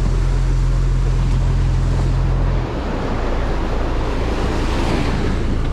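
Boat engine running under way, with water rushing past the hull and wind on the microphone. The steady low engine hum changes abruptly about two and a half seconds in and carries on as a rougher rumble.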